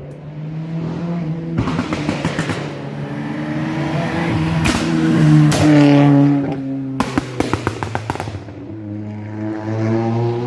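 Rally car engine accelerating hard, rising in pitch to its loudest about six seconds in, then lifting off with a quick run of sharp exhaust pops and bangs before accelerating again.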